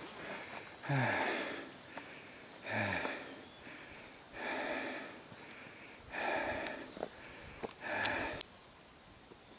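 A hiker breathing heavily close to the microphone: about five loud, rhythmic breaths, one every second and a half to two seconds, with a few faint clicks between them.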